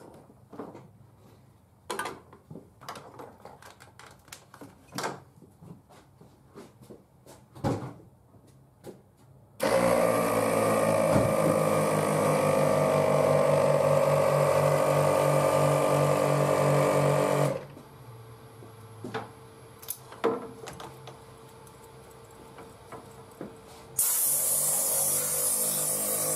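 An onboard air compressor starts about ten seconds in and runs loudly and steadily for about eight seconds, its motor humming evenly. Near the end, compressed air hisses loudly from a blow nozzle, blowing dust out of the engine bay. Before that there are scattered clicks and knocks of handling.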